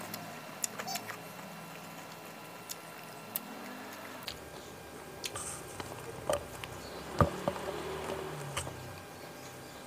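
Fingers squishing and mixing cooked rice with sambal matah on a banana leaf, giving small sticky clicks and wet squishes. Busier mouth and chewing sounds follow in the second half as the food is eaten by hand.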